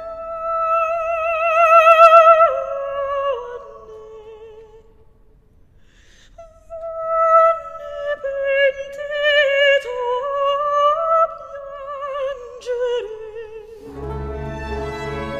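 Music: a slow, opera-like solo melody with strong vibrato. It pauses briefly about five seconds in, then resumes, and a fuller accompaniment with bass comes in near the end.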